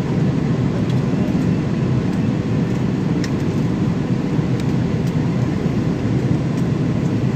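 Steady cabin noise of an airliner in flight: engine and airflow noise heard from inside the passenger cabin, even and low-pitched.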